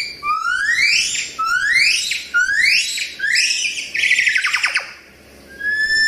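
Gibbon calling: a run of loud rising whoops, about one a second and growing shorter, that breaks into a wavering, falling trill about four seconds in.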